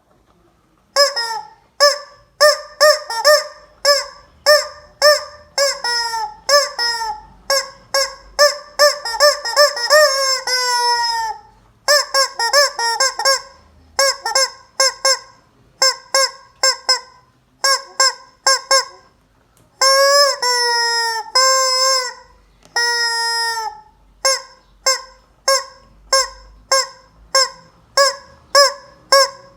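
A chicken squawking loudly and over and over in short, evenly pitched honks, about two a second, with a few longer drawn-out calls that slide down in pitch.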